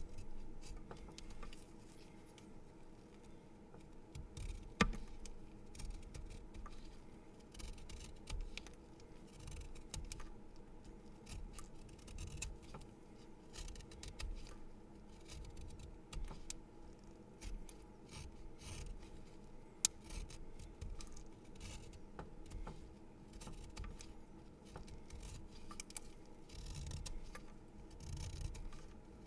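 A pencil being sharpened: an ongoing irregular scraping of the blade through wood and graphite, with a sharp click about five seconds in and another about twenty seconds in.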